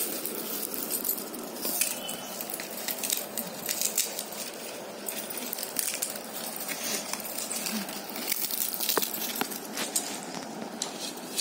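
Dried ridge gourd crackling as it is broken open by hand, with many small, irregular clicks as its black seeds drop onto a concrete floor.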